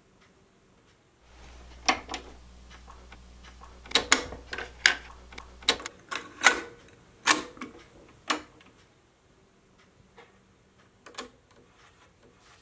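Mechanical clicks and clacks of a Panasonic stereo cassette deck being loaded: a cassette tape handled and pushed into the open tray, the door snapped shut and buttons pressed. About a dozen sharp clicks come in the middle few seconds over a low hum, with one last click near the end.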